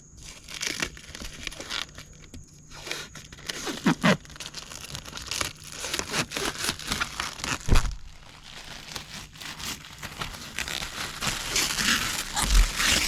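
Protective plastic film being peeled off a plexiglass sheet: an irregular run of crackling and tearing that grows denser near the end, with a couple of knocks as the sheet is handled.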